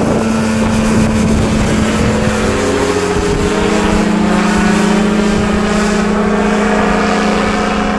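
Microlight trike's engine and propeller droning steadily as it climbs away after takeoff, its pitch dropping slightly about two and a half seconds in.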